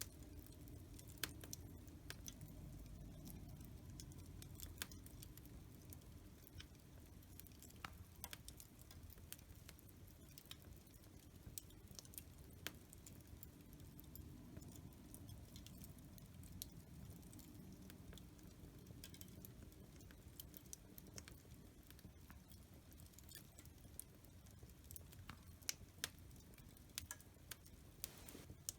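Quiet wood fire crackling in a fireplace: irregular sharp snaps and pops over a steady low rumble of burning.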